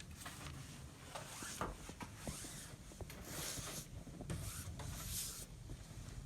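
Snow being cleared in repeated scraping, swishing strokes, each about half a second long, with a low rumble beneath.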